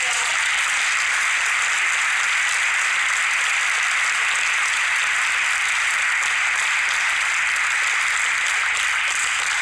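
Audience applauding: steady, dense clapping that starts suddenly.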